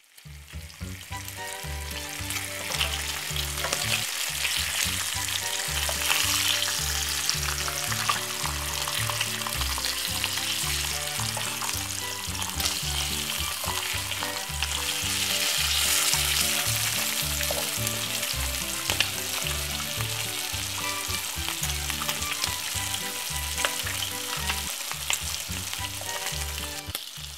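Bacon rashers sizzling as they fry in oil in a frying pan over medium heat. Background music with a steady bass line plays underneath.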